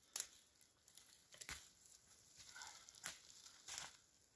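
Small sticks and twigs being handled and pushed into snowy ground: faint rustling with about four sharp snaps and cracks of brushwood.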